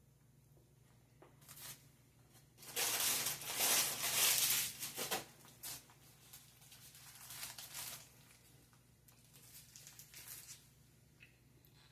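Paper food wrapper being crinkled and torn: a loud spell of crackling for a couple of seconds, then shorter rustles.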